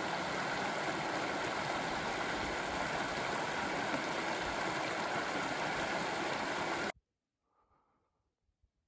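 Mountain creek rushing over rocks in shallow rapids: a steady wash of water that cuts off abruptly about seven seconds in.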